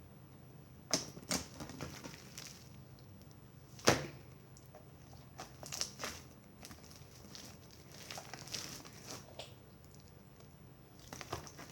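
Slime being squeezed and kneaded by hand, giving irregular sticky clicks and crackling pops, the loudest about four seconds in.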